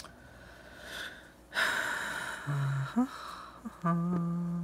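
A woman's breath drawn in and let out loudly, followed by short hummed 'mm' sounds, the last one held for most of a second near the end. A short click comes at the very start.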